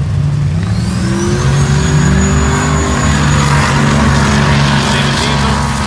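A loud vehicle engine running hard at high revs, with a high-pitched whine that rises about a second in and then holds steady.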